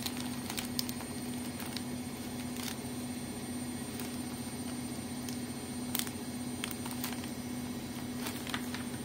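Light scattered clicks and handling noises as a handheld plastic bag sealer is pressed and moved along the edge of a snack bag, over a steady low hum.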